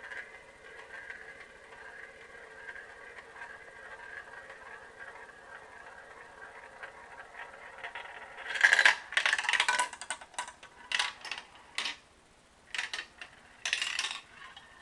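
A marble running down a homemade marble run: a faint, steady rolling sound along the track, then about eight and a half seconds in a burst of loud clattering knocks. A few shorter clatters follow near the end.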